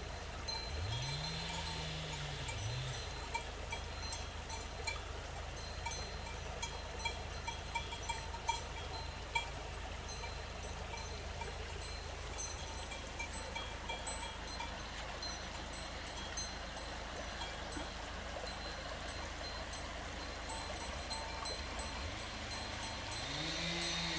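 Cowbells on grazing cattle clanking on and off over the steady rush of a shallow river running over gravel. A cow moos about a second in and again near the end.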